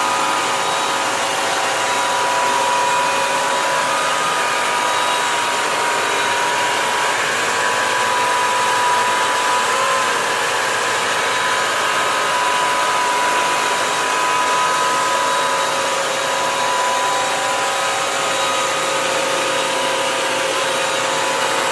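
Bissell CrossWave 1785A wet-dry floor cleaner running steadily on a hard floor: a loud, even motor whine of constant pitch over a rushing suction noise.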